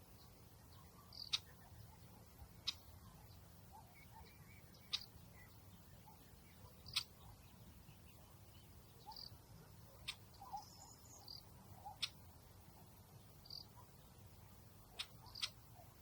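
Birds giving sparse, short chirps and brief high notes every second or two over a faint low outdoor rumble.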